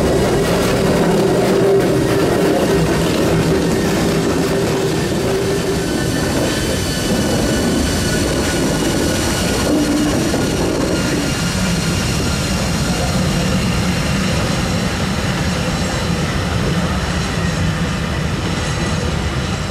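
Vintage Swiss electric locomotives, an Ae 3/6 and a Be 6/8 'Crocodile', hauling a train of old coaches slowly past. There is a steady rumble of running gear with a hum for the first few seconds as the locomotives go by, then the coaches roll past, with thin high squeals from the wheels throughout.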